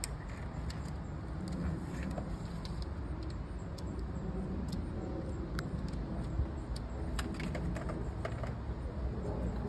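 Faint scattered clicks and taps of fingers pressing plastic screw cover caps onto the side of an Andersen 3000 series storm door frame, over a steady low rumble.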